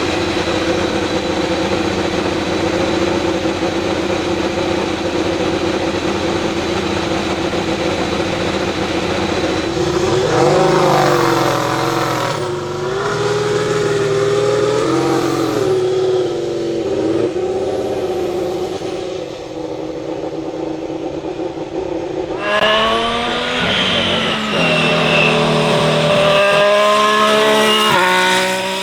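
2018 Ferrari SF71H Formula 1 car's 1.6-litre turbocharged V6 running at a steady idle, then blipped up and down in repeated revs. About two-thirds of the way in it pulls away hard, its pitch climbing, dropping back at each upshift and climbing again.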